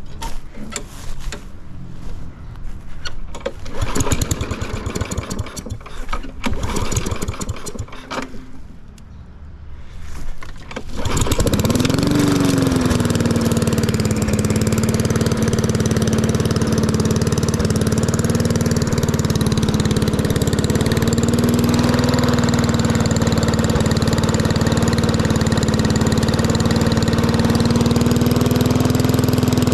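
Irregular knocks and rattles, then a lawn mower's small engine starts about eleven seconds in, revs up briefly and settles into steady running through a newly fitted aftermarket muffler.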